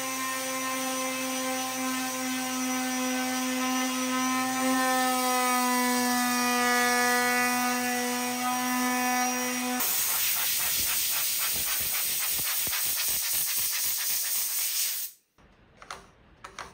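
Black+Decker electric palm sander running on an epoxy-coated skateboard deck: a steady motor whine that turns harsher and rougher, with a rapid even rasp, about ten seconds in. It cuts off suddenly about fifteen seconds in, followed by a couple of faint taps.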